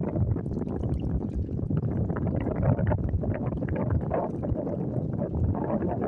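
Wind rumbling on the microphone, with lake water lapping and sloshing in the shallows as a dog wades.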